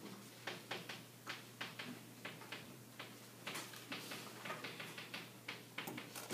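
Chalk on a chalkboard: irregular taps and short scratches as words are written, several a second, over a faint steady low hum.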